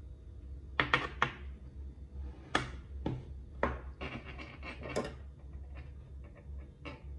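Hands setting cut blocks of kinetic sand down on a hard tabletop and pressing them against a moulded sand shape: a string of short taps and soft rubs, with a quick cluster of taps in the middle.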